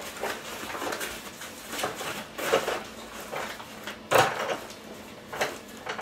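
Hands rummaging in a nylon gear bag: fabric rustling and items shifting, with a few soft knocks, the loudest about four seconds in.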